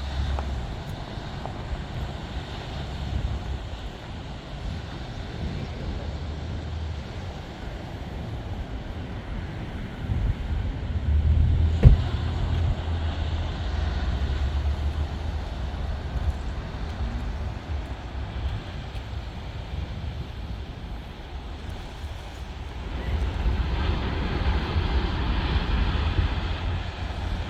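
Wind buffeting the microphone: a gusting low rumble over a steady hiss, with a single sharp knock about twelve seconds in.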